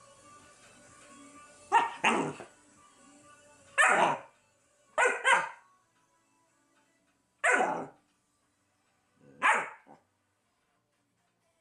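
Berger Picard puppy barking: seven short barks, some in quick pairs, spread over about eight seconds. Faint background music runs under the first barks and stops about halfway.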